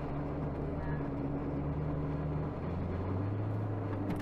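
Car engine and tyre noise heard from inside the cabin while driving; the engine note shifts lower about two and a half seconds in.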